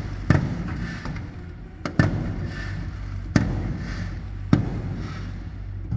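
Aerial fireworks shells bursting: four sharp bangs a second or so apart, with a crackling hiss from the bursts between them over a steady low rumble.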